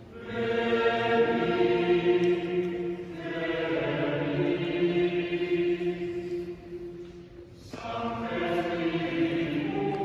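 Mixed choir of men and women singing in a large, reverberant stone church: long held chords, changing about three seconds in. The singing fades around seven seconds, and a new phrase comes in about a second later.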